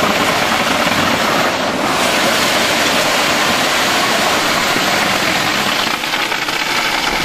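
Wet concrete pouring down a metal mixer-truck chute into a rebar-lined wooden form: a steady rushing noise, with the concrete mixer truck running.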